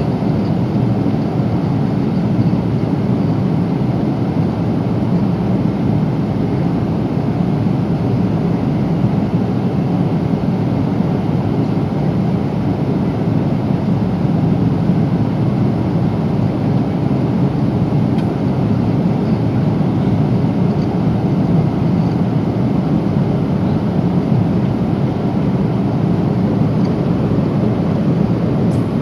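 Steady cabin noise inside a Boeing 777-300 at cruise: a constant low rush of engine and airflow noise.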